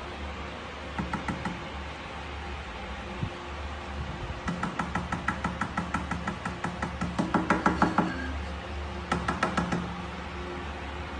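Runs of rapid light knocking or tapping, about six strikes a second, over a steady low hum; the longest run is loudest near its end.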